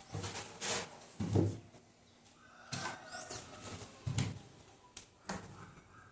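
Cardboard boxes being handled and set in place: a series of dull thumps, about six over a few seconds, with scraping and rustling between them.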